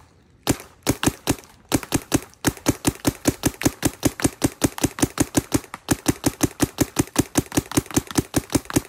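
Planet Eclipse Etha 3M paintball marker firing: a few single shots about half a second apart, then a fast, even string of shots at roughly six a second.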